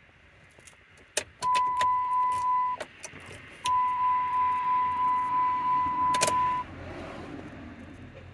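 Two long electronic beeps at one steady pitch, the first about a second and a half long and the second about three seconds, with a few sharp clicks before and between them, during key programming on a 2008 Dodge Ram.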